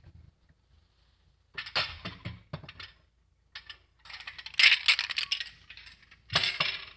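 Kitchen utensils clinking and rattling as they are rummaged through in a utensil holder. A few sharp clicks come about two seconds in, then a longer run of clattering in the second half, with one more burst near the end.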